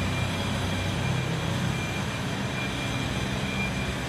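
Engine of heavy machinery running steadily: a low, even hum with a thin steady high whine above it.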